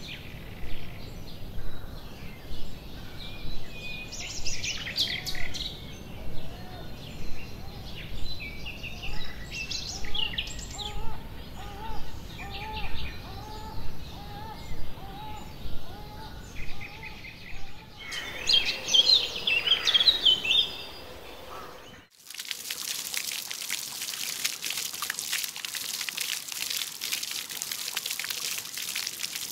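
Songbirds singing and chirping, with a run of short, evenly repeated lower calls in the middle. About 22 seconds in it cuts suddenly to the steady splashing of water falling from a garden fountain.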